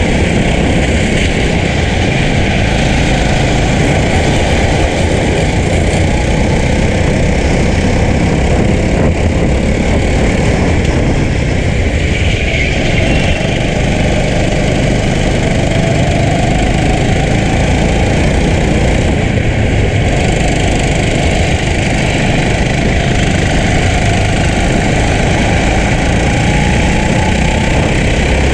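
Racing go-kart engine running hard, heard from onboard the kart amid other karts in close traffic, loud and continuous, with a faint engine tone that climbs gradually over the second half as the kart accelerates.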